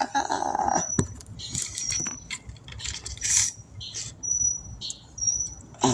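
A songbird singing short, high whistled notes every second or so, between chattering phrases. Close rustling and a knock from handling come through, loudest in the first second.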